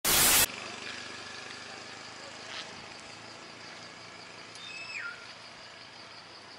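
A loud half-second burst of TV-static hiss at the start, then a steady chorus of insects with a pulsing high trill. A single short falling chirp comes about five seconds in.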